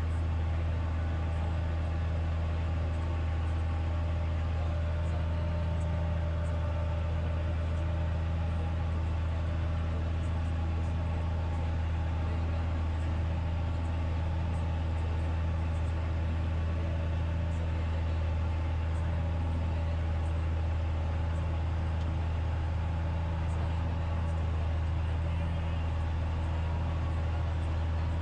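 Tractor engine running steadily under load while pulling a mouldboard plough through the soil: an even, low drone that does not change.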